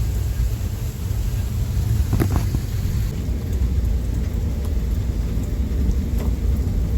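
Continuous low rumbling thunder from a severe thunderstorm, unbroken and sounding like a freight train, with a few faint clicks over it.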